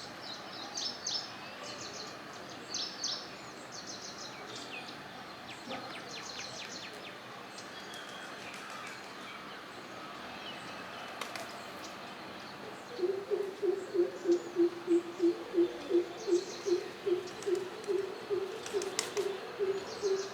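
Greater coucal giving its deep, hollow series of 'coop' notes, about two to three a second, starting about two-thirds of the way in. Earlier, other small birds chirp high and briefly.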